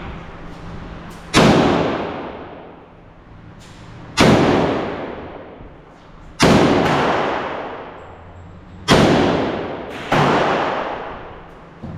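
Five gunshots fired one at a time at a shooting range, two to three seconds apart, each a sharp crack followed by a long echo that dies away.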